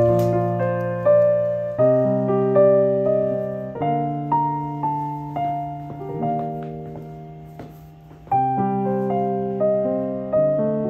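Background piano music: a gentle melody of single struck notes, each fading away, over low held chords, with a new phrase starting loudly about eight seconds in.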